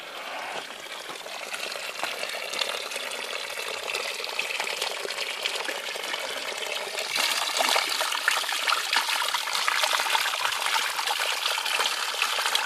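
Spring water running from a wooden spout and splashing onto rocks, a steady trickling gush that grows louder about halfway through as the microphone comes close. Near the end, the flow breaks over a hand held in it.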